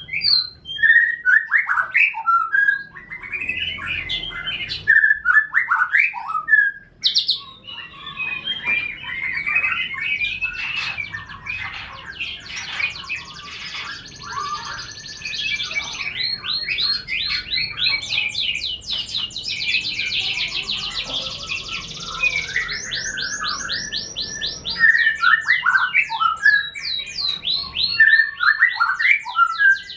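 A domestic F1 canary and a white-rumped shama singing in their cages, with the canary serving as the master bird whose song the shama is meant to learn. Varied, loud whistled phrases open and close the stretch, with long runs of fast, rapidly repeated high trill notes between them.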